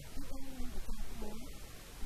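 A man speaking, answering questions, over a steady low background hum.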